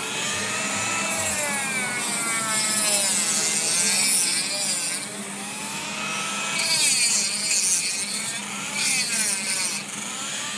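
Small rotary tool with a cutting disc grinding through a hardened plaster cast on a dog's leg. Its whine wavers up and down in pitch as the disc bites into the plaster, over a gritty hiss of cutting. The set plaster is being cut open to free the leg and keep the cast as a splint mould.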